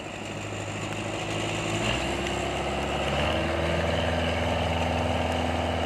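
Combine harvester's diesel engine running steadily. It grows louder over the first few seconds and its pitch shifts a little about two seconds in.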